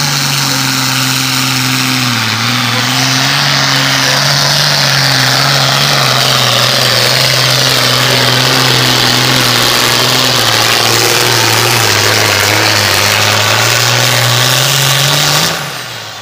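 Diesel engine of a modified farm pulling tractor running flat out through a pull, holding a nearly steady pitch, then dropping away suddenly near the end as the run finishes.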